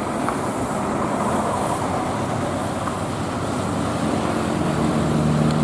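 Large bus going by close, with engine and road noise; a steady low drone builds from about four seconds in.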